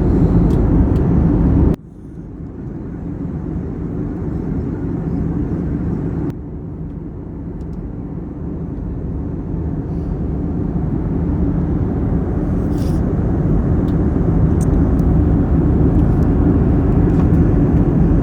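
Airliner cabin noise: the steady, low-pitched roar of the jet engines and airflow. It drops abruptly about two seconds in and again around six seconds in, each time building back up gradually.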